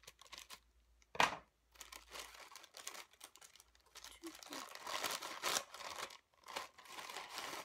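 Packaging crinkling and rustling as a gift-wrapped pouch is handled and opened and a tissue-paper bundle is pulled out. There is a sharp, loud crackle about a second in and a busy stretch of crinkling around five to six seconds in.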